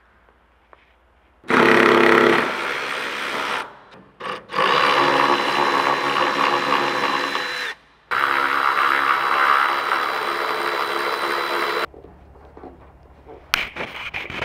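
A power driver runs in three steady bursts of a few seconds each, backing out the bolts that hold an aircraft's wing-tip fuel tank on. A few light knocks follow near the end.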